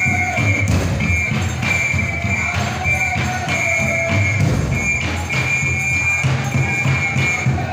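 Traditional drum music: several large drums beaten in a steady, driving rhythm, with a high held tone sounding over it in stretches.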